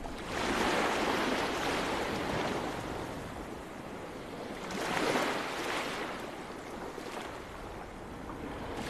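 Sea waves washing onto a sandy beach, swelling and falling back about every four seconds.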